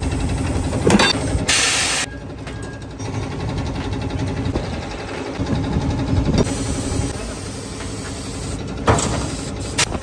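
Pneumatic tyre-changing machine working a tyre onto a car's alloy rim: a steady machine hum for several seconds, short hisses of compressed air and a couple of sharp clanks. The tyre had been leaking air at the rim and is being refitted.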